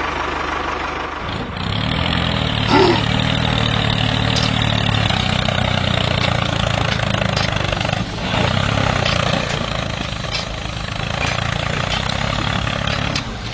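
Tractor engine running steadily at an even pace, with a brief dip about eight seconds in.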